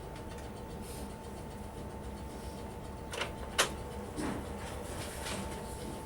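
Inside a British Rail Southern Region 2EPB electric multiple unit: a steady low rumble with a faint steady whine, and two sharp clicks or knocks a little past halfway.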